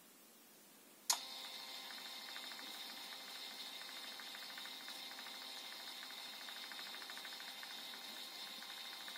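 Phomemo P12 thermal label printer printing a sticker: a click about a second in as it starts, then its feed motor running steadily with a fast, fine ticking as the tape is fed out.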